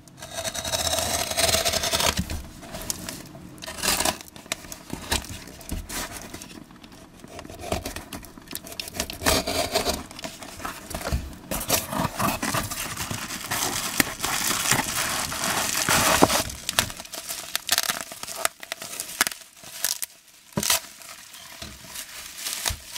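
A taped cardboard parcel being opened: a box-cutter blade slitting packing tape, then cardboard and tape tearing and plastic bubble wrap crinkling. It comes in irregular bursts of rustling and crackling with sharp clicks.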